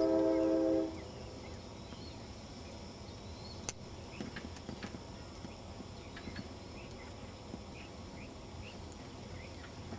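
A loud held chord of steady tones cuts off about a second in. After it comes faint outdoor ambience with scattered short bird chirps and the soft hoofbeats of a cantering horse on arena dirt.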